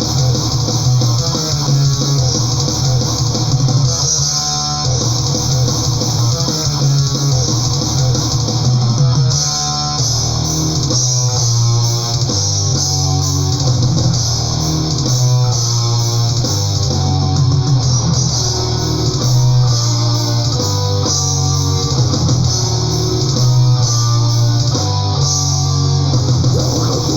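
Death/thrash metal recording: riffs on distorted electric guitars over bass guitar.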